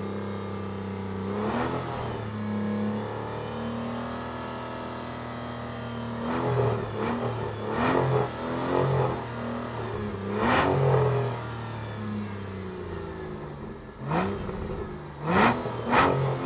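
Aston Martin engine idling steadily, blipped repeatedly with short throttle revs that rise and fall back to idle, several in quick succession.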